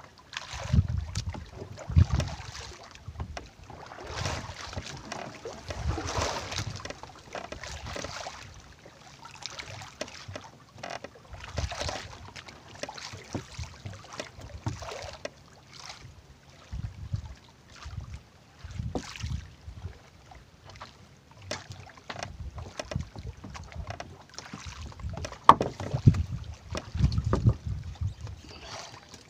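Water sloshing against a fishing kayak's hull and wind on the microphone, in uneven surges, with scattered knocks and clicks from handling on the kayak.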